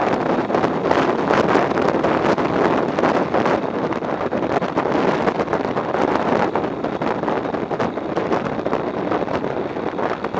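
Wind rushing and buffeting over the microphone of a camera on a Bajaj Pulsar motorcycle riding at road speed, mixed with the bike's running and tyre noise. The rush is steady and eases slightly near the end.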